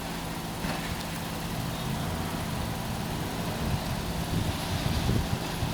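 Motor vehicle engine idling: a steady low hum with some uneven low rumble in the second half.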